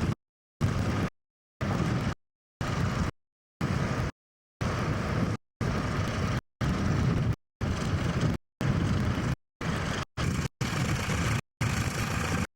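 Tractor engine running, the sound cutting out to dead silence for a split second about once a second, a dropout fault in the recording.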